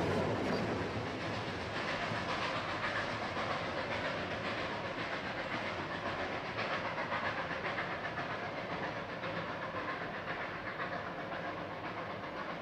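Narrow-gauge Puffing Billy Railway train running on the track, the sound slowly fading as it draws away.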